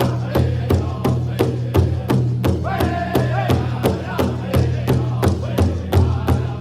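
Powwow drum struck in unison in a steady beat of about three strokes a second, with a group of singers chanting an intertribal song over it; the voices rise to a high held line about three seconds in.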